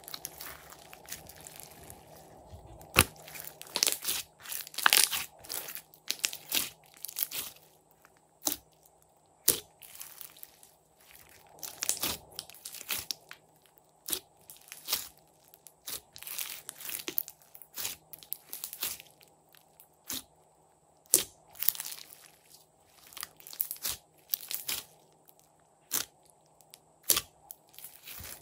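Hands kneading and squeezing glossy floam slime full of small foam beads: irregular crunching and crackling in clusters about every second, with short quiet gaps between squeezes, loudest a few seconds in.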